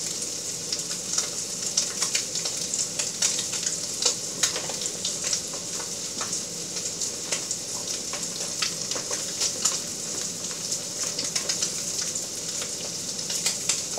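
Rockfish fillet frying in butter in a stainless steel pan over high heat: a steady sizzle with constant small pops and crackles as the first side sears.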